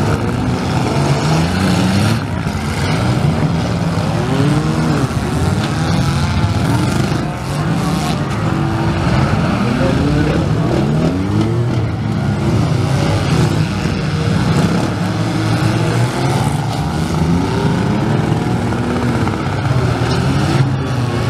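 Several demolition-derby compact cars' engines revving hard together, their pitch repeatedly rising and falling as the drivers accelerate and back off, with a few sharp crashes of cars hitting each other.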